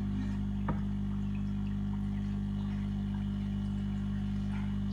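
Air compressor running with a steady, even hum, just switched on to drive the air lines of two aquarium sand waterfalls.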